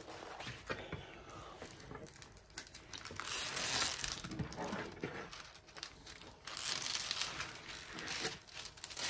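Clear plastic film over a diamond painting canvas crinkling and rustling as it is lifted and handled, with the canvas sliding over paper. The rustling is loudest in two stretches, about three seconds in and again a little past the middle.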